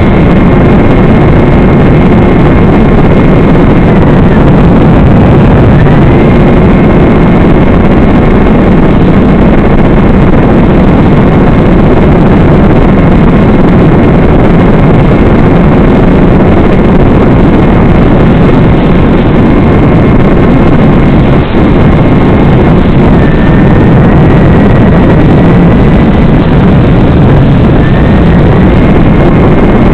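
Electric motor and propeller of a battery-powered FPV model aircraft in flight, a steady whine over loud rushing noise; the whine dips briefly in pitch about four seconds in and twice more in the last third.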